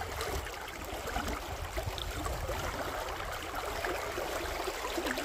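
River current rushing steadily, an even wash of flowing water with a low rumble underneath.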